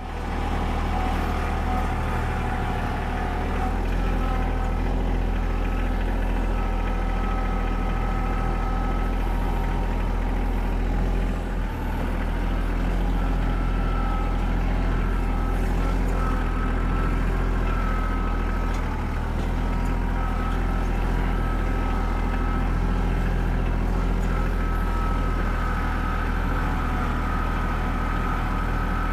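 Kubota L3400 compact tractor's diesel engine running steadily, with a higher whine that comes and goes above the engine note.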